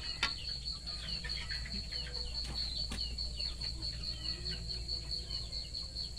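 Crickets chirping in a steady, fast-pulsing high trill, with shorter falling chirps mixed in. A metal ladle knocks against the cooking pot twice, once just after the start and once near the middle.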